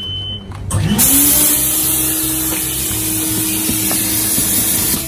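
Coin-operated car-wash vacuum switching on: its motor spins up with a rising whine about a second in, then runs steadily with a loud rush of air.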